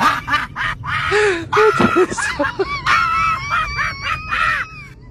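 High-pitched shrieking laughter: a run of short, rising-and-falling cries, followed in the second half by a longer, wavering high-pitched cry.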